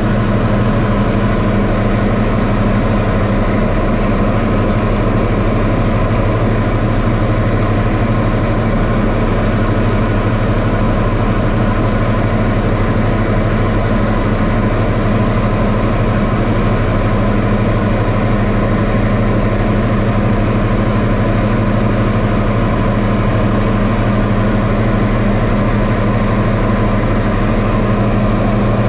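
Diamond DA40 light aircraft's engine and propeller droning steadily in flight, heard inside the cockpit, with a constant low hum that does not change.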